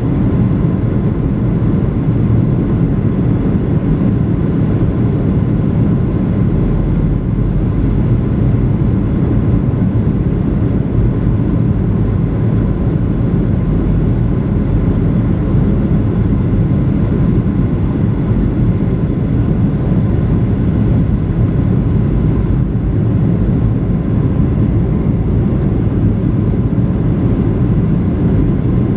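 Steady cabin noise inside a Boeing 737-900 on approach: a deep, even rush of airflow and engine noise from its CFM56-7B engines, with faint steady whining tones.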